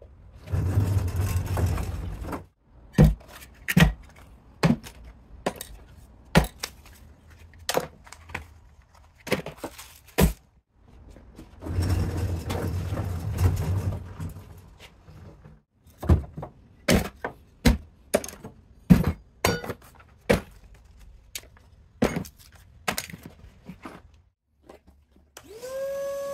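Scattered knocks and thunks of things being handled, with two stretches of rushing noise about two seconds each. Near the end a shop vacuum switches on, its motor whine rising quickly to a steady pitch.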